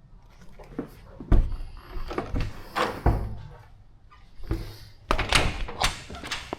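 A run of knocks and thuds, with two heavy thumps about a second and a half and three seconds in and a busier clatter near the end.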